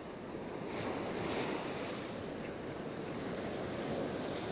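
Ocean surf breaking and washing up the sand, the wash swelling about a second in and again near the end.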